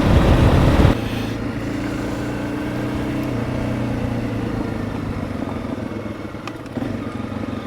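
Honda CRF300 Rally's single-cylinder four-stroke engine running, loud for about the first second, then dropping to a steady lower note as the throttle eases.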